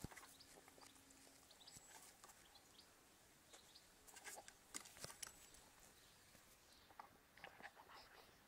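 Near silence with faint, scattered small clicks and water splashes: a small terrier nosing at goldfish in a bucket of water.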